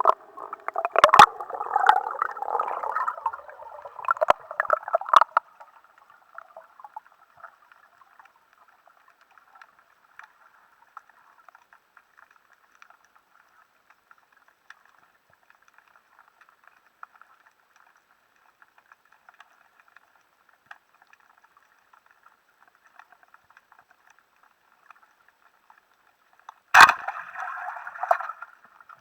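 Underwater water noise as heard through a camera's waterproof housing: gurgling and bubbling for the first five seconds with a few sharp clicks, then a faint crackle, and a sharp click near the end followed by more gurgling.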